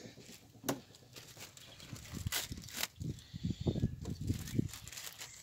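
Plastic bag rustling and crinkling in the hands, with a few sharp clicks and knocks of handling.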